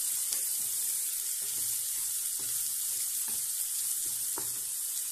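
Chopped onions and green chillies sizzling in hot oil in a non-stick wok, being fried toward golden brown, with a spatula scraping and stirring them about once a second.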